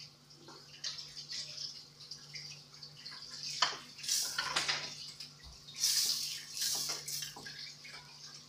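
Butter sizzling in irregular crackling spurts as it melts in a hot stainless steel pan, stirred with a wooden spatula.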